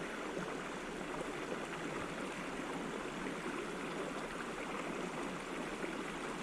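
Steady rushing of a mountain creek flowing over rocks, an even wash of water noise with no sudden sounds.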